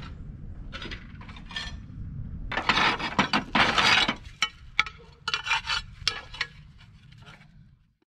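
Old slates being pried and pulled off the wooden boarding of a slate roof by hand: irregular rasping scrapes and sharp clinks of slate on slate, busiest around the middle, fading out near the end.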